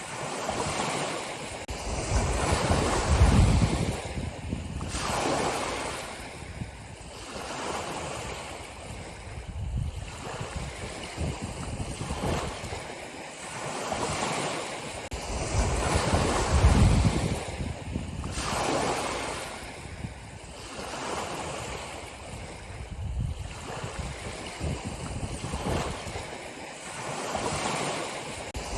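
Ocean surf: waves breaking and washing in, swelling and fading every few seconds. The waves are loudest about three seconds in and again near the middle.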